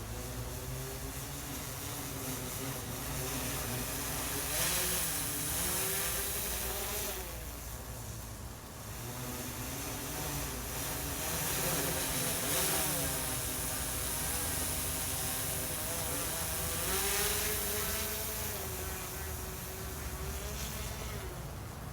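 DJI Matrice 4T quadcopter drone flying on its stock propellers: a buzzing propeller hum whose pitch rises and falls as the motors change speed. It swells to a louder rush several times.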